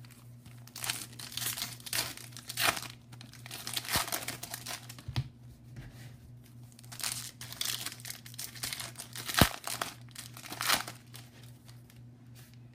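Foil baseball-card pack wrappers crinkling and tearing as packs are opened and handled, in irregular bursts, with a few sharp taps, the loudest about nine and a half seconds in.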